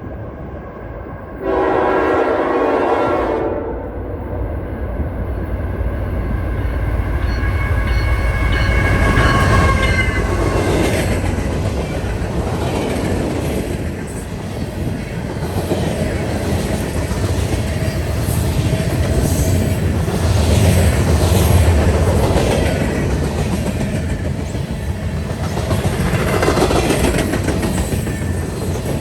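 A train's air horn sounds one blast of about two seconds near the start, then the train passes close by: locomotive engine rumble and wheels clacking over the rail joints, swelling and easing as it goes.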